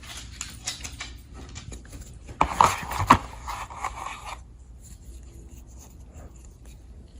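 Steel multi-tool being handled and worked at by hand to get a blade open: rubbing, scraping and a quick run of sharp clicks and knocks, loudest about two and a half to three seconds in. The handling dies down to faint scattered ticks after about four and a half seconds.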